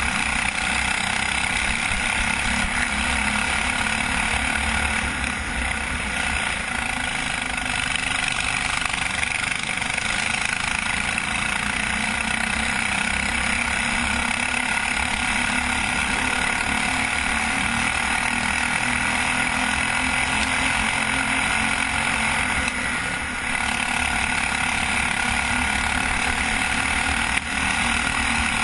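Go-kart engine running hard, heard close up from the kart itself, with wind noise over it; the engine sound drops briefly twice, about 5 and 23 seconds in.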